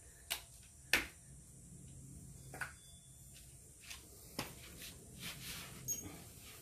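Sparse metal clicks and knocks of a wrench working the grille bolts of a WWII Willys MB / Ford GPW Jeep: about half a dozen at uneven spacing, the loudest about a second in.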